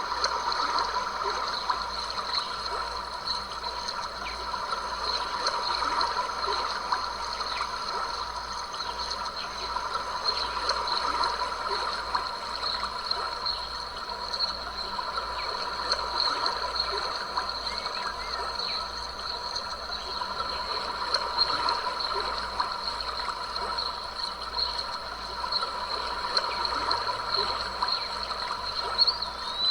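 A stream of water flowing and trickling steadily, with a thin, steady high tone running through it.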